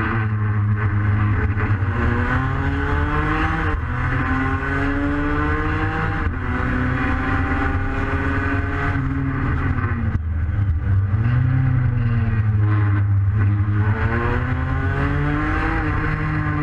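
Racing Vespa scooter's two-stroke engine heard from on board under hard acceleration. Its pitch climbs through each gear and drops at the shifts several times.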